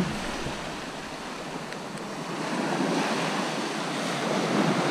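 Waves breaking and washing on the beach, with wind on the microphone; the surf grows louder about halfway through. A short knock right at the start.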